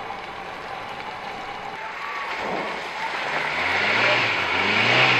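Early Toyota 4Runner's engine running low at first, then revving up and getting louder from about three seconds in, with a rising rush of noise as it tries to drive through deep mud ruts on a failed attempt at the mud pit.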